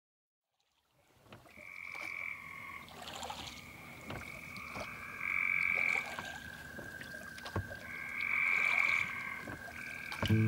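A chorus of frogs calling in drawn-out, high trills about a second long, several overlapping, with a few faint knocks among them.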